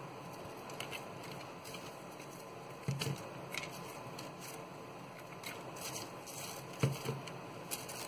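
Faint rustling and crinkling of green floral tape being pulled off its roll and wound around a crown wire, with scattered light ticks and two soft knocks, one about three seconds in and one about seven seconds in.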